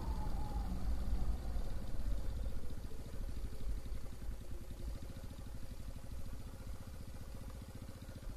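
Motorcycle engine running as the bike rides slowly, with wind rumble on the microphone at first. The engine note falls over the first second or two as the bike slows for a turn, then settles into a steady low, even beat that fades slightly.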